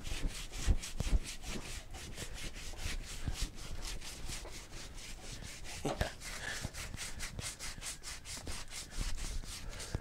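Sandpaper rubbed by hand in rapid, even back-and-forth strokes over body filler on a cracked steering wheel rim, smoothing the repair.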